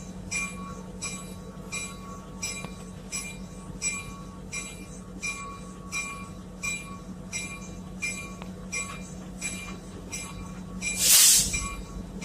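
Locomotive bell ringing steadily, about one and a half strokes a second, over a low steady hum. A short, loud hiss cuts in about eleven seconds in.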